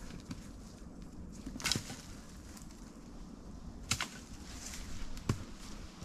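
Quiet woodland background with a few short, sharp cracks or rustles, three of them spread through: the first about one and a half seconds in, the strongest.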